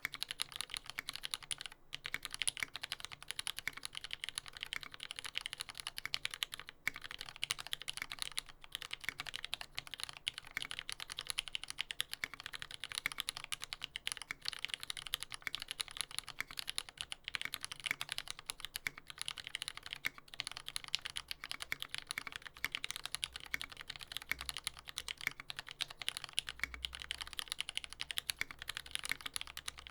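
Continuous fast typing on a TX75v2 mechanical keyboard with lubed Retooled Black switches on a brass plate: a dense, steady stream of keystrokes with a few brief pauses.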